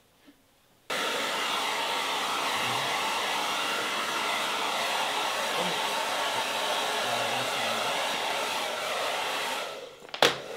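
Handheld hair dryer blowing steadily, starting abruptly about a second in. The blowing dips near the end, and a sharp click follows.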